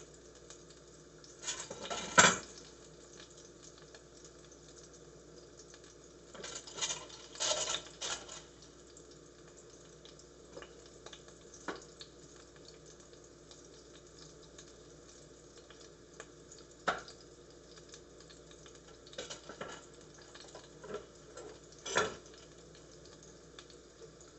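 Sliced sausages frying in a pan with a faint, steady sizzle, broken by sharp knocks and clatters of kitchen utensils a few seconds apart: the loudest about two seconds in, a short cluster about seven seconds in, then single knocks.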